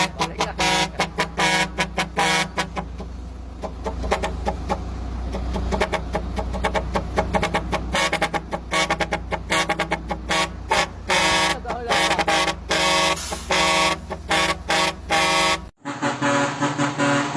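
A 4-foot horn on a vehicle blown in rapid runs of short toots, about two a second, with a steadier stretch in the middle and a low steady hum underneath. It cuts off abruptly near the end.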